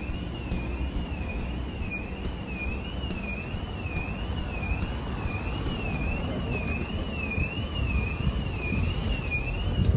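A high electronic alarm tone warbling steadily up and down, a bit faster than once a second, over a low rumble of wind or traffic.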